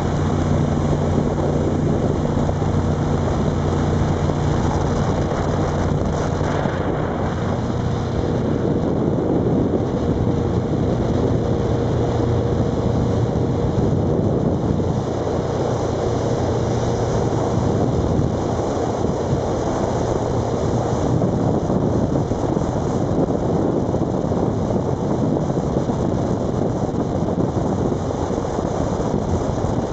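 Engine of a 1989 Thompson Carrera 220 cruiser running steadily under way, with water rushing past the hull and wind on the microphone. The engine is newly installed and still being broken in, so it is run below full throttle. Its tone is clearest for the first seven seconds or so, after which wind and water noise take over.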